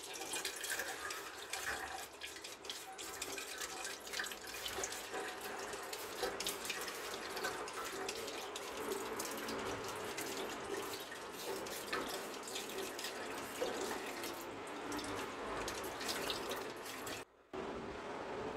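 Kitchen tap water running over a chayote held in the stream and splashing into a stainless steel sink, steady throughout; it cuts off suddenly near the end.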